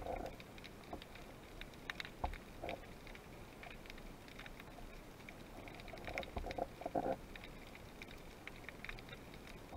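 Faint underwater ambience: a steady scatter of small crackling clicks, with a few muffled, splashy thumps at the start, about two and a half seconds in, and again about six to seven seconds in.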